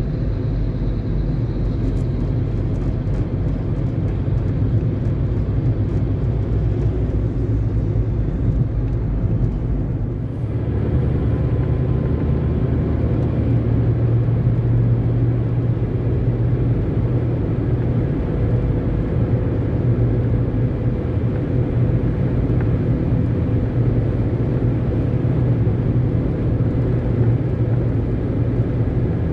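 Steady road and engine noise of a car driving on a highway, heard from inside the cabin, mostly a low rumble and hum. The noise briefly dips about ten seconds in, after which a low hum comes up stronger.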